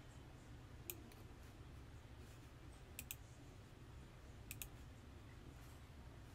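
Computer mouse button clicking: a single click about a second in, then two quick double clicks, over a faint low hum.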